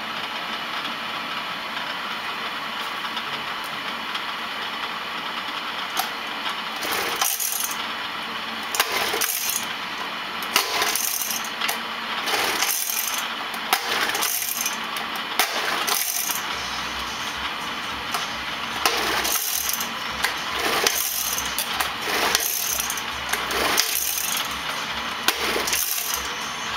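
Freshly rebuilt Martin 75 two-stroke outboard motor running on a stand during break-in. From about six seconds in, irregular sharp metallic clicks and rattles come about once or twice a second. A low rumble joins about halfway through.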